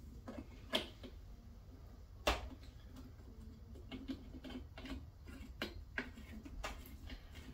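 Scattered light clicks and taps as the fitting of a pumpkin keg tap is screwed onto its spout by hand inside a hollowed pumpkin. There is a sharper click about a second in and another a little after two seconds, then a run of small ticks.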